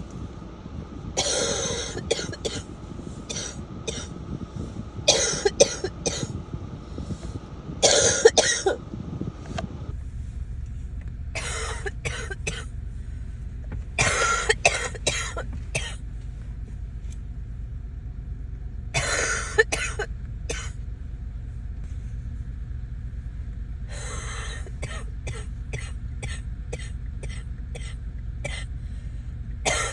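A person coughing in repeated bouts of several hacks each, about eight bouts, with a long run of short rapid coughs near the end. It is a congested cough from a cold with sinus congestion.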